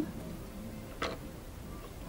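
A single short click or tap about a second in, over a quiet room background.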